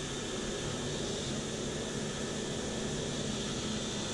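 Electric bench polishing machine running steadily, its motor and spinning roughing wheel giving an even mechanical whir with a faint steady hum, while a steel wheel nut is held to the wheel for polishing.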